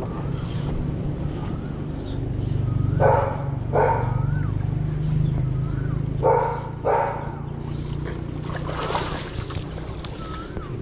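A dog barking in two pairs of short barks, over a steady low hum, with faint short chirps recurring now and then.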